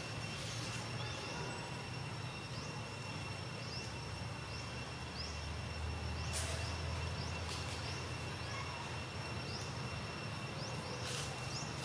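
Steady outdoor ambience: a low rumble and hum with a faint steady high whine. A short rising chirp repeats about once a second, and a sharp click comes near the middle and another near the end.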